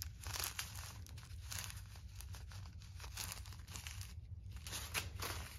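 Small plastic zip bags of square diamond-painting drills crinkling as they are handled, in irregular faint crackles, with a short pause about four seconds in.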